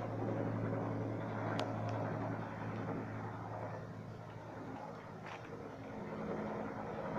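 Bell UH-1 helicopter flying high overhead, heard from the ground as a steady low drone.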